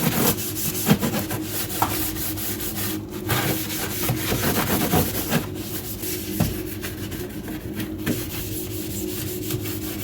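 A scrubber rubbing over the inside of a fridge with soapy detergent water, in repeated back-and-forth scrubbing strokes.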